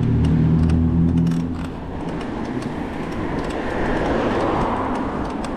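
Traffic and road noise heard from a moving bicycle. A motor vehicle's low engine hum fades out about a second and a half in, leaving a steady rush of wind and tyre noise that swells as another vehicle passes near the end, with scattered light ticks.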